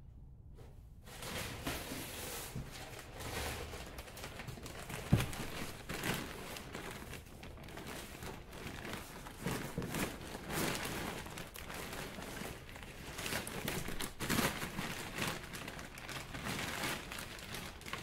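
A plastic bag of potting mix crinkling and rustling as it is handled and tipped to pour soil into a potting tray, with one sharp knock about five seconds in.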